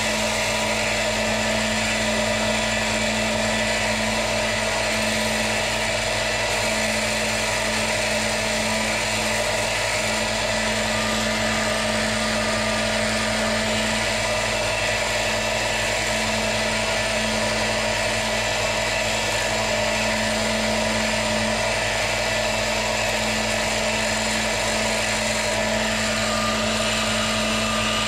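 Parkside bench grinder with a sanding belt running steadily with a constant motor hum, while a worn drill bit's tip is held against the belt and ground back to a sharp point.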